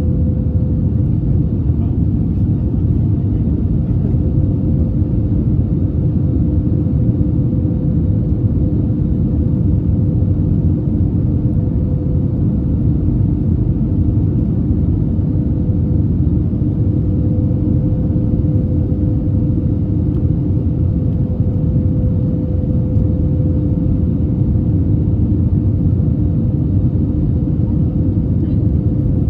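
Airbus A321 cabin noise in flight: a loud, steady rumble of engine and airflow, with two steady hum tones running through it.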